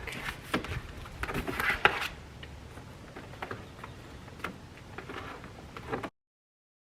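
Gardening shears snipping through a floor mat: a quick run of sharp clicks and cuts, then slower scattered snips. The sound stops abruptly near the end.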